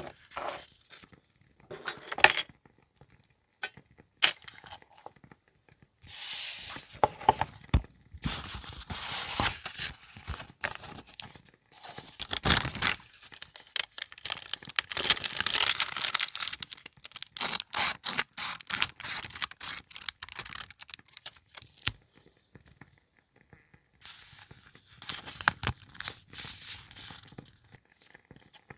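Paper being handled: tearing, crinkling and rustling in irregular spells, with many small clicks and taps in between and a lull about three quarters of the way through.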